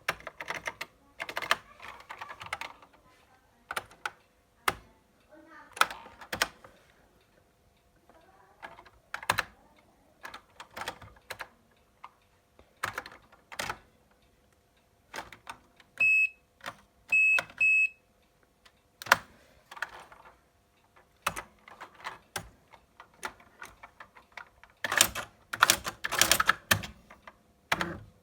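Electronic typewriter being typed on: irregular sharp keystroke and print strikes, with three short high beeps about two-thirds of the way through and a fast run of strikes near the end.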